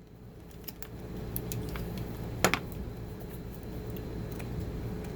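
Small clicks and taps of hands handling tools and parts, with one sharper click about two and a half seconds in, over a steady low hum.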